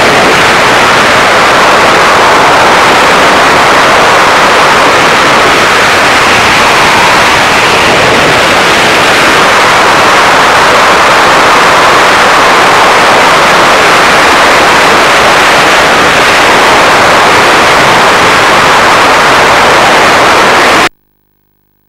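Loud, steady wind noise from the freefall airstream blasting across the skydiving camera's microphone, cutting off suddenly near the end.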